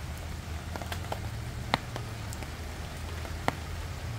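Steady rain pattering on a canopy tent roof, with a low hum underneath and two sharper single ticks, about one and a half seconds apart, near the middle of the stretch.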